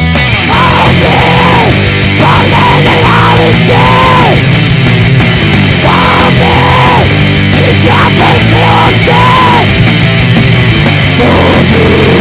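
Heavy metal band playing an instrumental passage between verses: loud, dense full-band playing, with a higher melodic line that bends up and down and repeats about every two seconds.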